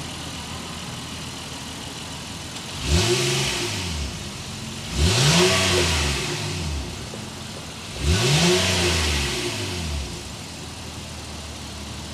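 2023 Honda Ridgeline's 3.5-litre naturally aspirated V6 idling through its dual exhaust and revved three times, each rev rising and falling back to idle, a couple of seconds apart.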